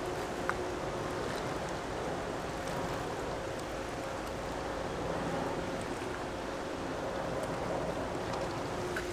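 Steady drone of boat engines across harbour water, with a faint steady hum under a wash of wind and water noise. A single short click comes about half a second in.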